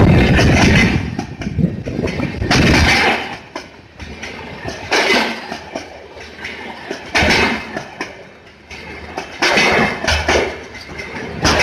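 Rajdhani Express LHB passenger coaches rolling past on the adjacent track. Heavy wheel rumble at first, then a loud clatter of wheels over the rails each time a pair of bogies goes by, about every two and a half seconds, with quieter stretches between.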